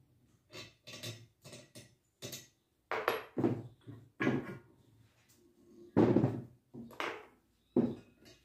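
Painted metal bicycle fork parts knocking and clattering against each other and the workbench as they are handled and fitted together by hand: a dozen or so irregular knocks, the loudest about three, four, six and seven seconds in.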